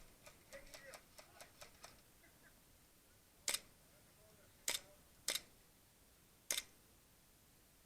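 Four sharp, single snaps spread over about three seconds, typical of an airsoft gun firing single shots. A run of faint quicker ticks comes before them.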